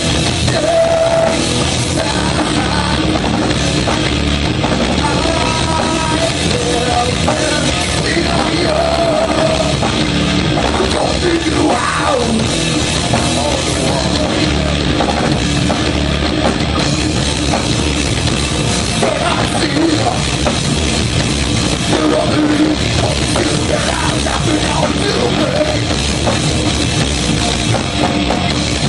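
Heavy metal band playing live: distorted electric guitar, bass guitar and drum kit, loud and dense without a break.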